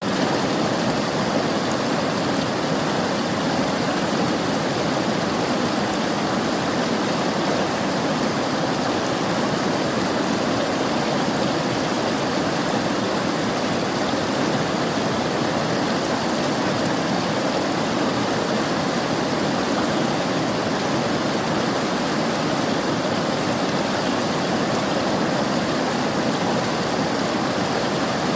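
River water flowing and rushing steadily: a constant, even rush with no breaks or changes.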